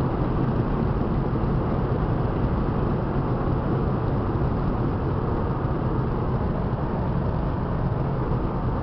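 Steady low drone of engine and tyre noise heard inside a car cruising at highway speed, with no change in pitch.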